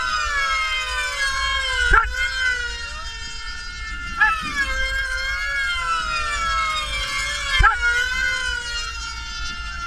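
Several Q500 pylon racing model planes' small glow-fuel two-stroke engines running flat out together, a high whine whose pitches rise and fall as the planes circle the course. Planes pass close about two seconds in, again around four seconds and at about seven and a half seconds, each with a quick drop in pitch.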